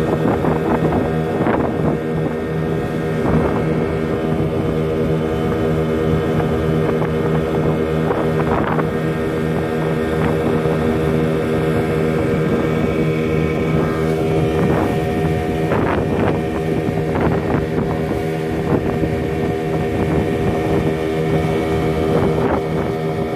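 Johnson outboard motor running steadily at cruising speed, pushing a small boat along, with a few brief splashes of water against the hull.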